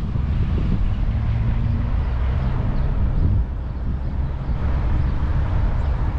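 Street traffic: a motor vehicle's engine runs past, a low rumble with a faint steady hum, over a continuous outdoor background.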